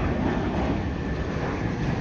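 Jet airliner engines running with a steady rumble, with wind on the microphone.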